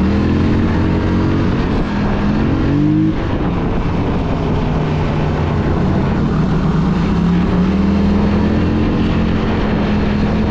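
Polaris Scrambler 1000 XP quad's engine running under way. It rises in pitch under throttle for about three seconds, drops as the throttle is eased, then runs fairly steadily with a gentle rise again past the middle.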